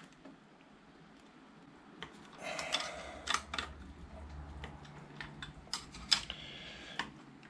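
A wrench loosening the 12 mm pinch bolt on a motorcycle's fork top yoke: from about two seconds in, irregular light metallic clicks and rattles of the tool on the bolt.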